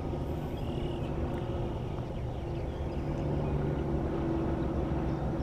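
Steady low drone of a distant engine, growing slightly louder over the last couple of seconds.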